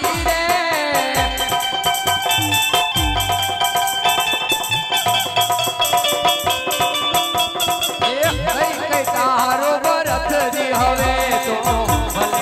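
Live Indian folk music with a fast, steady jingling rattle-type percussion keeping time, a melody of held steady notes, and deep drum beats now and then.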